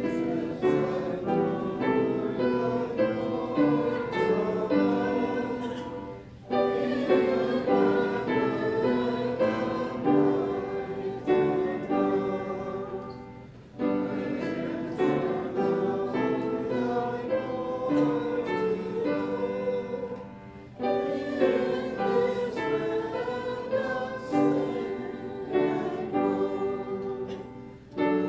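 Congregation singing a hymn, in lines of about seven seconds with a brief breath between each line.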